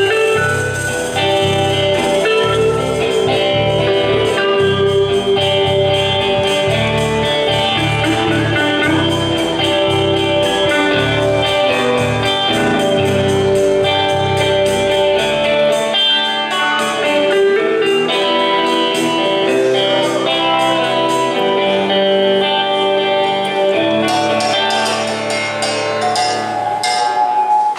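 Band music playing as an album intro, with many sustained instrument notes over a steady low end; the bass drops out a little past halfway and returns near the end.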